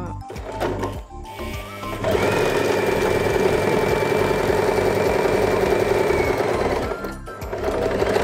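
Usha Janome Excella DLX electric sewing machine running at a steady speed for about five seconds, sewing a straight stitch through cloth, with a thin steady motor whine. It starts about two seconds in and stops near the end.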